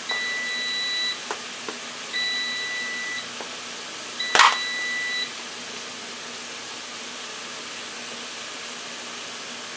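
Air fryer oven's timer beeping at the end of its cooking cycle: three long, high beeps of about a second each, a second apart, then it stops. A sharp knock about four seconds in.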